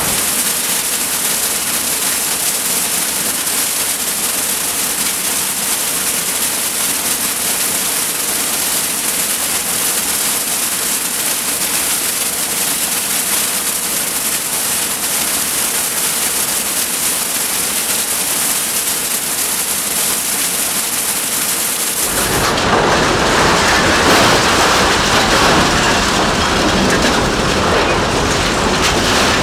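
A steady, high hiss with almost no low end. About 22 seconds in it cuts to the louder, heavy grinding rumble of a scrap-metal car shredder working a crushed car body.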